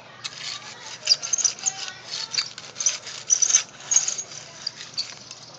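Hands rubbing and pressing the plastic blades of artificial turf along a seam, giving an irregular, scratchy rustling in quick bursts.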